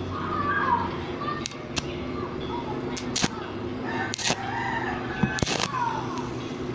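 A rooster crowing and chickens calling, a few drawn-out gliding calls over a steady low hum. A few short, sharp crackles are heard during them.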